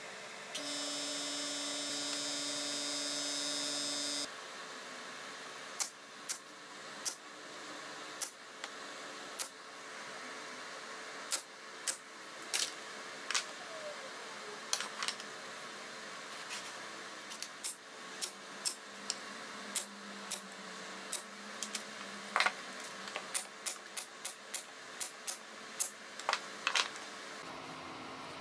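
Sharp irregular clicks and knocks of birch plywood panels and small tools being handled and set down on a wooden workbench during a glue-up. It opens with a steady, pitched machine whine lasting about four seconds.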